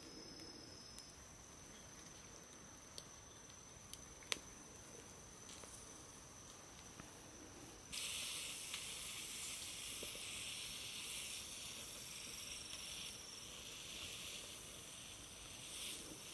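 Scallops in their shells sizzling on a charcoal shichirin grill. The sizzle starts abruptly about halfway through, after a few sharp clicks of metal tongs against the wire grate.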